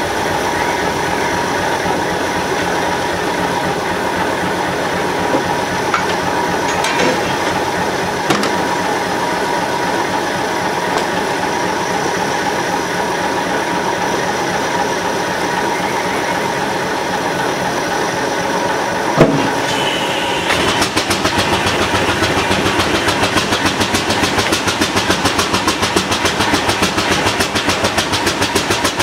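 Engine-driven sawmill machinery running steadily, with a few sharp clicks and one knock. About twenty seconds in, a fast, even beat starts and the sound gets louder.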